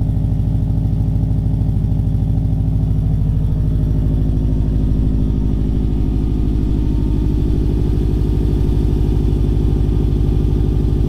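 Subaru Liberty GT Spec B's turbocharged EJ25 flat-four idling steadily through a full 3-inch exhaust with straight-through mufflers, loud at the tailpipes. It is still on its raised idle soon after a cold start.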